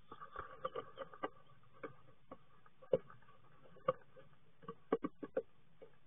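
An adult great tit scrabbling about inside a wooden nest box over its chicks: irregular sharp taps and knocks on the wood and nest material. The loudest knocks come about three, four and five seconds in.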